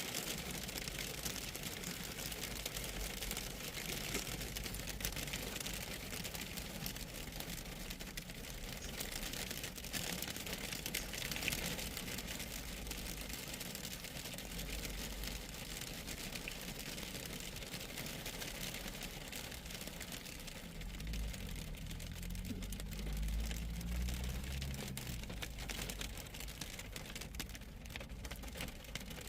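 Steady rain falling, a hiss with fine patter of drops, over a low rumble; a low engine-like hum swells and fades about three-quarters of the way through.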